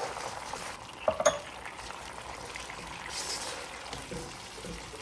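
Sauce bubbling and sizzling steadily in a saucepan, with two quick clinks of a utensil against the pan about a second in.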